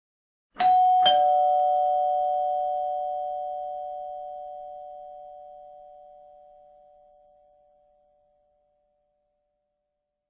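Two-tone doorbell chime: a higher tone then a lower tone, struck about half a second apart, a ding-dong that rings on and fades away slowly over several seconds.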